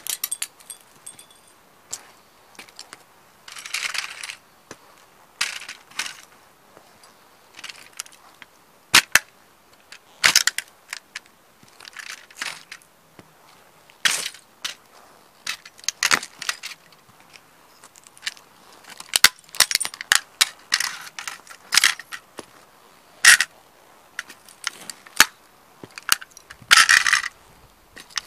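Hiking boots stomping and trampling toy model cars on concrete: irregular sharp cracks and thuds as the models break, with a few longer crunching grinds, the loudest near the start and near the end.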